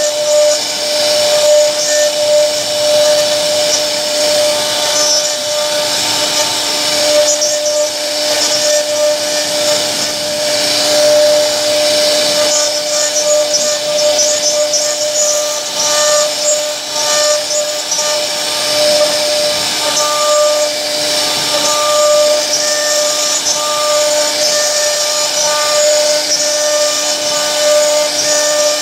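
CNC router spindle carving a relief pattern into a wooden door panel. A steady whine from the spindle runs over the hiss of the bit cutting the wood.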